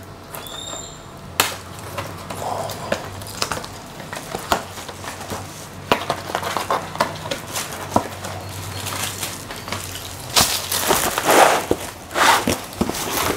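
Clear plastic shrink-wrap on a cardboard fireworks box being picked at and cut open, with scattered small clicks and scratching. About ten seconds in, the film is pulled off with loud crinkling.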